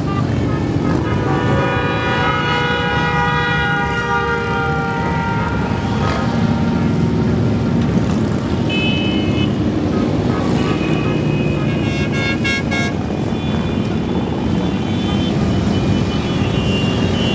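A stream of cruiser motorcycles rumbling past at parade pace, their engines blending into one steady low drone. Horns honk over it: a long held blast in the first few seconds, then shorter toots later on.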